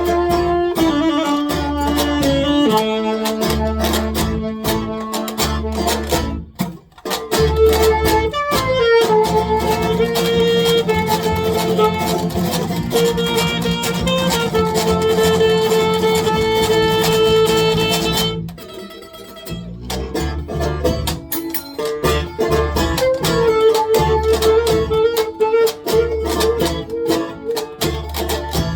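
Live folk band playing an instrumental passage: strummed acoustic strings under long held melody notes. The music drops away briefly about two-thirds of the way through, then the band comes back in.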